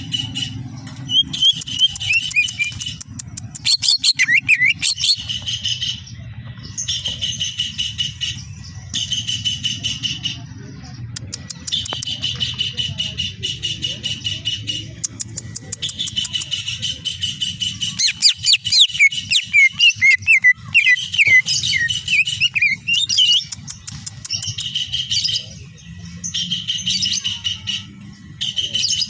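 Greater green leafbird (cucak ijo) singing in bouts of a second or two: fast, stuttering runs of repeated high notes broken by short pauses, with sliding whistled notes mixed in. A steady low hum runs underneath.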